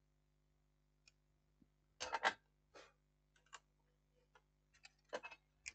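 Faint, scattered clicks and taps of a small power-supply circuit board and soldering iron being handled during soldering, a short cluster about two seconds in and a few single ticks after, over a faint steady hum.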